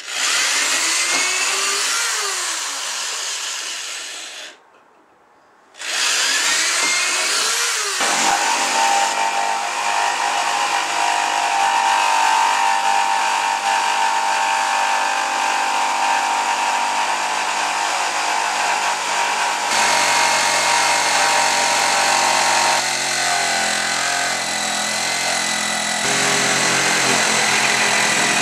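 Corded power drill boring through a garage door panel: the motor speeds up and winds down once, stops for about a second, then starts again and runs steadily under load, its pitch shifting a few times.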